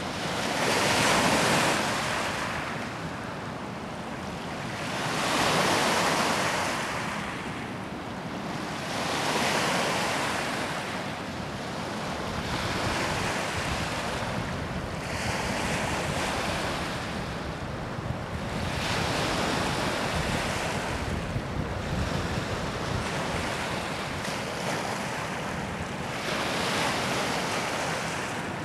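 Waves washing in one after another, each surge swelling and fading over a few seconds, with wind buffeting the microphone.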